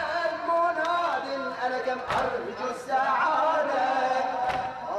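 A male reciter chanting a mourning elegy (latmiya) in Arabic through a microphone, in long held, wavering notes. Sharp slaps about every two and a half seconds mark the mourners' chest-beating in time with the chant.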